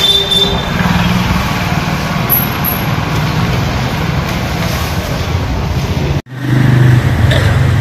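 Street traffic noise: motor vehicles running and passing, a steady low rumble. The sound cuts out for an instant about six seconds in.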